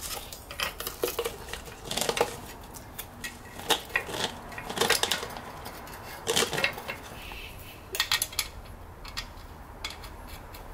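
Scattered metal clinks and knocks from handling a compressed coil spring held by spring compressors while a new front strut and its rubber dust boot are fitted into it.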